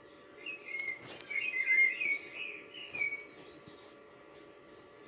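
A songbird singing a warbling phrase of chirps for about two and a half seconds, starting about half a second in, over a faint steady hum.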